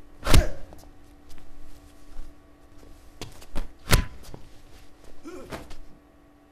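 Impacts of a staged fist fight: a loud hit about a third of a second in, a few smaller knocks, and a second loud hit just before four seconds in as one fighter is thrown over the other, over a low steady hum.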